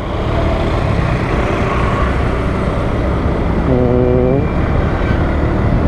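Motorcycle riding at a steady speed: engine and wind noise, even in level throughout, with a short pitched sound about four seconds in.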